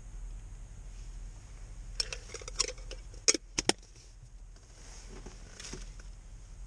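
Small metal objects clinking and rattling as they are handled, ending in a few sharp clicks, over a low steady hum.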